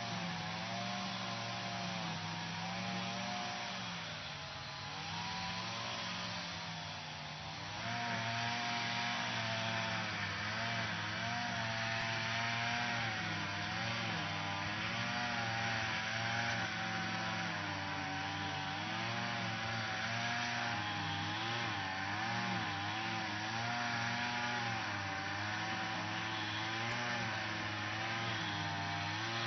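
Lawn mower engine running steadily, its pitch wavering up and down. It eases off a little around five to seven seconds in, then picks up louder with more hiss from about eight seconds.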